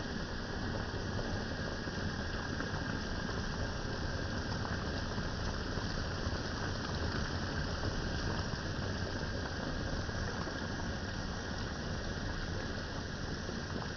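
Steady cooking hiss from a pot of bihon noodles with cabbage and carrots on the stove, the food simmering in its liquid.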